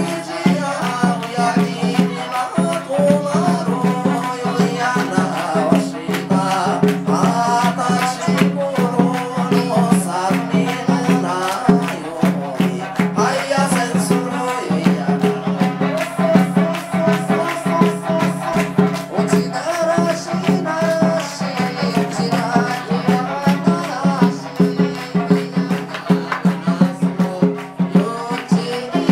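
Live Okinawan folk music for kachāshī dancing: singing over a fast, steady beat of percussion and crowd handclaps.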